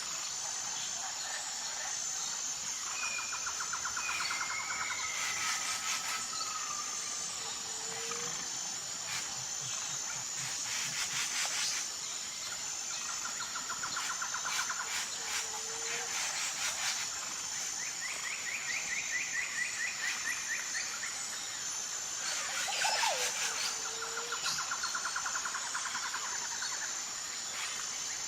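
Outdoor insect chorus: a steady high-pitched pulsing drone, with several short bird trills and brief chirping calls over it.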